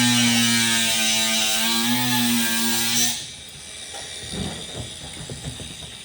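Handheld electric power tool motor running steadily under slight load, with a hiss above its hum; it cuts off suddenly about three seconds in. Light knocks and rattles of handled metal follow.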